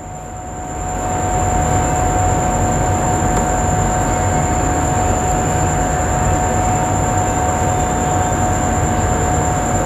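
Steady mechanical hum and rumble with a few constant whining tones, growing louder over about the first second and then holding level.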